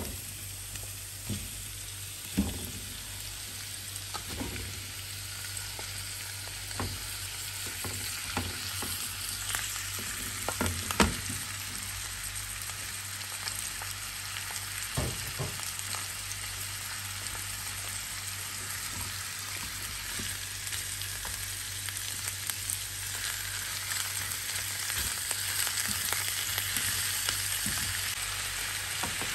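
Raw chicken pieces sizzling in hot oil in a non-stick frying pan with sautéed garlic and onion. Scattered knocks and clatters sound over the first half as the pieces go in and are pushed around with a spatula. The sizzle grows steadier and a little louder toward the end.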